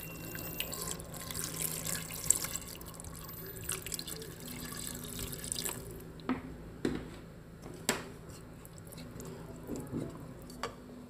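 Water being poured into a cooking pot of chopped vegetables and chicken, a steady splashing stream for about six seconds. After that come a few sharp knocks and clicks.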